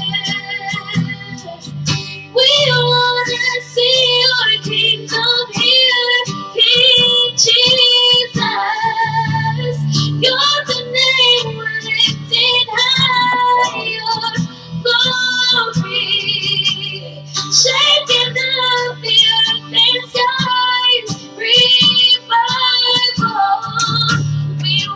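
Worship song playing: a singer's voice over guitar and a steady bass line.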